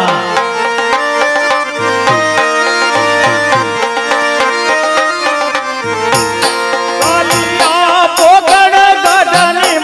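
Live Gujarati folk-drama music: tabla strokes under steady held melody notes, with a sung voice coming in about six seconds in.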